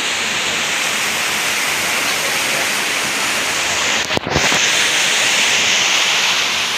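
Steady rushing water with an even, hissing roar, broken by a brief dropout a little after four seconds in.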